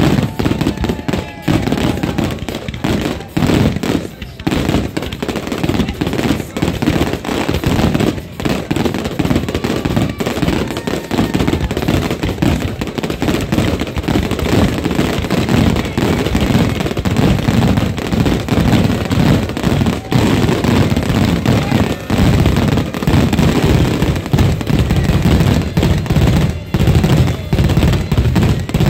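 Fireworks going off in a rapid, continuous barrage: dense crackling and popping bangs with no pause between them.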